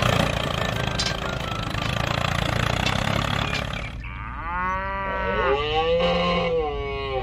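A tractor engine running steadily, then a cow mooing twice in long calls from about four and a half seconds in.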